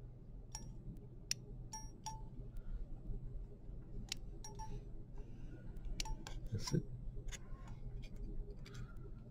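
Steel surgical instruments, forceps and a needle holder, clicking and clinking while a suture is placed: about a dozen sharp, irregular metallic ticks, each with a brief ring, over a faint low hum. A softer knock comes about six and a half seconds in.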